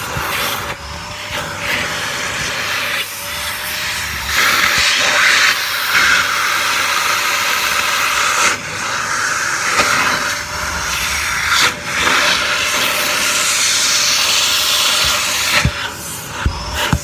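Vacuum cleaner running, a steady hum under a hiss of suction that swells and drops every few seconds as the nozzle is worked over a shoe, with a few sharp knocks near the end.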